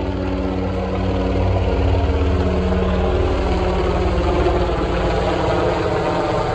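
Air-sea rescue helicopter flying low overhead: a loud, steady drone of turbine and rotors with a fast, even rotor beat.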